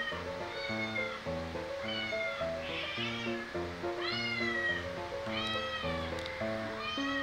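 A cat meowing about five times, each meow high and arching up then down, over background music with a steady stepping melody. The meows are the unseen 'other cat' the house cats are hunting for, not the grey cat on screen.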